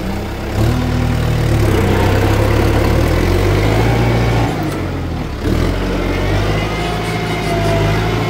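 Kubota tractor's diesel engine running hard while ploughing. It picks up about half a second in, eases off briefly around the middle, then pulls again.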